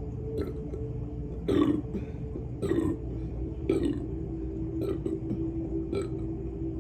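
A young woman burping repeatedly after drinking fizzy soda: a run of short burps about a second apart, the loudest about a second and a half in. A steady low hum runs underneath.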